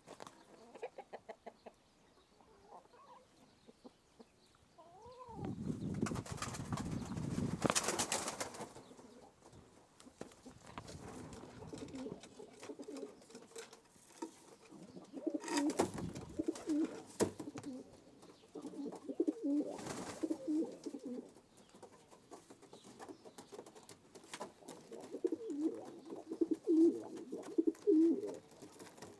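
Domestic pigeons cooing in repeated low warbling bouts. A loud burst of rustling noise lasts a few seconds, about six seconds in, and there are a couple of sharp clicks.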